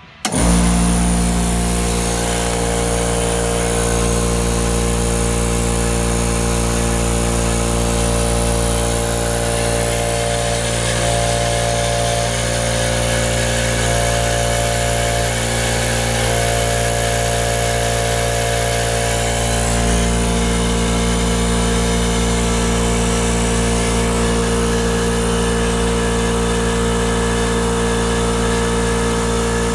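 Ingersoll Rand P1IU-A9 2 HP single-stage twin-stack portable air compressor kicking on abruptly just after the start and running steadily, its pump filling the empty tank on its first run. It is described as pretty quiet compared to a lot of compressors.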